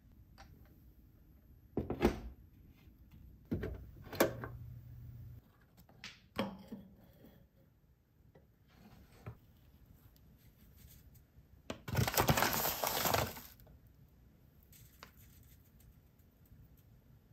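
Kitchen handling sounds of pour-over coffee gear: a few sharp clinks and knocks of metal against glass and counter as a stainless mesh filter and kettle are set down, then a louder rustling scrape lasting about a second and a half.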